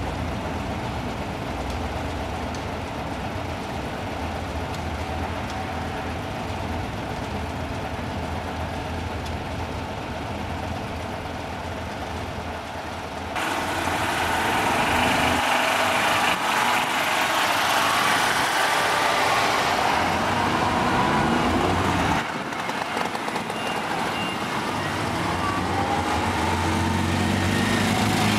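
Old cars' engines running: a steady low idle, then, about halfway in, louder small-car engines revving and pulling away, their pitch rising and falling.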